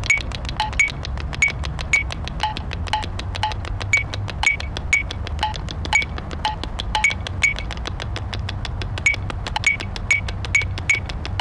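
Rapid, even clicking, about eight clicks a second, with short high chime-like pings at two pitches sounding every half second or so over a steady low rumble.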